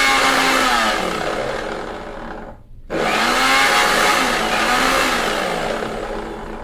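Havells Genie 500-watt mixer grinder motor running a steel jar. It is switched off about a second in and its whine falls as it spins down. Just before halfway it starts again at full speed, runs for a couple of seconds, then spins down once more.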